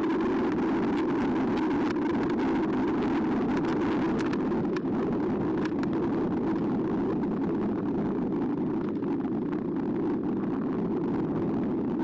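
Steady rushing noise of an eBike being ridden, tyres and air moving past the bike-mounted camera, with scattered light ticks in the first half.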